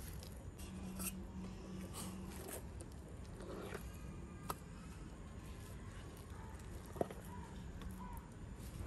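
Faint handling sounds of soft ground chana dal and jaggery paste being scooped by hand off a stone grinding mortar into a steel pot, with a few small sharp clicks.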